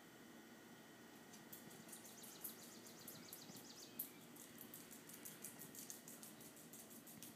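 Faint, rapid, irregular clicking of a small dog's claws on a hardwood floor as it scurries about, starting about a second in, with a couple of sharper taps.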